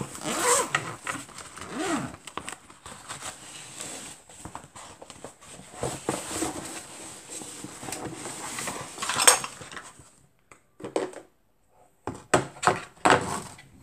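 Irregular rustling, knocks and light clatter of a backpack and other things being handled, with a short lull about ten seconds in.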